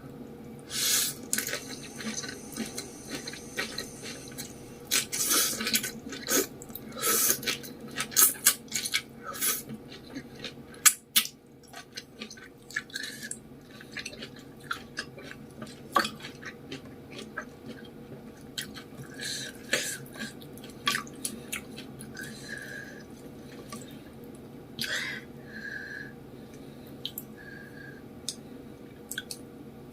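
Close-miked wet chewing and mouth sounds of eating spicy noodles with fish balls and vegetables, in quick clicky, smacking bursts that are densest in the first ten seconds and sparser after that.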